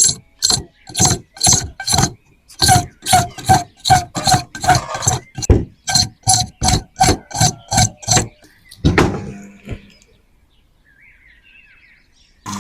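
A rapid run of sharp knocks, about three a second, stopping about eight seconds in, with one last knock a second later.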